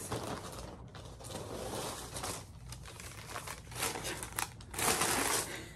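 A long paper store receipt rustling and crinkling in irregular bursts as it is handled and unrolled, loudest near the end.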